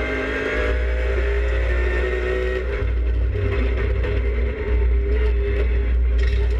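Race car's engine running under way, heard from inside the cabin, with a brief dip in level about four and a half seconds in.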